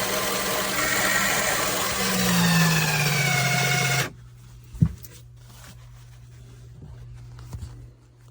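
A motor running loudly, its pitch sliding down about two seconds in, then cutting off abruptly about four seconds in, leaving a low steady hum and a single click.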